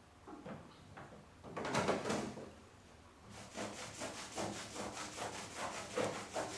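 Back-and-forth rubbing strokes, scrubbing at a stuck residue with paint thinner. A few light strokes, two louder ones about two seconds in, then a fast, even run of about four to five strokes a second.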